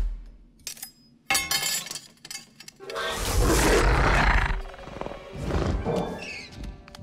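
A steel kitchen ladle knocked from its hanging rack clatters and rings on metal about a second in. Then a velociraptor gives a loud screech, with further shorter calls, over orchestral film score.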